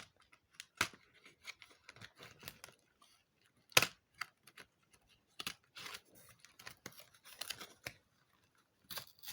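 A cardboard advent-calendar door being torn open and the small jewellery packet inside handled, heard as scattered sharp clicks and short tearing rustles.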